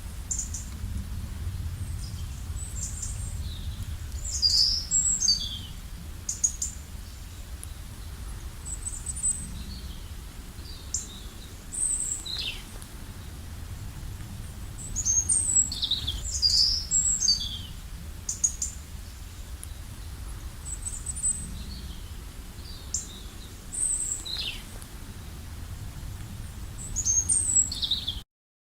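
Songbirds chirping and singing in short high calls and quick falling notes, coming in clusters with the busiest bursts three times, over a steady low outdoor rumble. The sound cuts off suddenly near the end.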